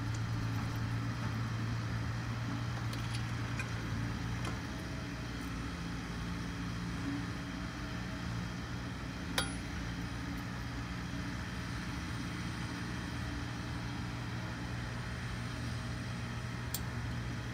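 A steady low machine hum, with one sharp click about halfway through from hand work at the mower engine's spark plug.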